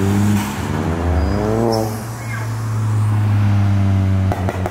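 Cars accelerating hard past along the road, the engine and exhaust note rising in pitch for about two seconds, then holding a loud steady low drone. About four seconds in the drone drops away suddenly and a run of sharp pops follows.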